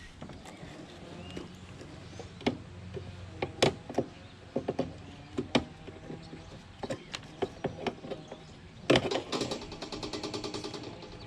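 Scattered sharp clicks and clanks of hand tools and metal parts as insulated copper wire is cut and pulled off a scrap mini fridge. About nine seconds in there is a louder clank, then a couple of seconds of rapid rattling.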